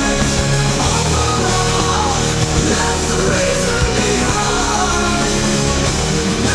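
Instrumental passage of a loud hard rock/metal song: a full band with guitar, bass and drums playing at a steady, dense level.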